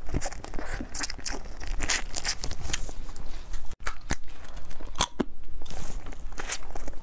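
Close-up eating sounds of spicy crab claws: crunching and crackling with many sharp clicks as the shell pieces are bitten and chewed. The sound drops out briefly a little before the four-second mark.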